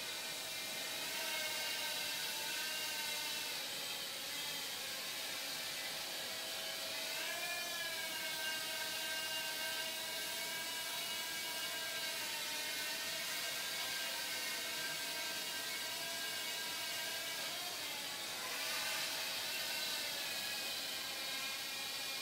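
Blade Nano QX micro quadcopter in flight, its motors and small propellers making a steady high-pitched whine. The pitch swings up and down with throttle changes about a third of the way in and again in the last quarter.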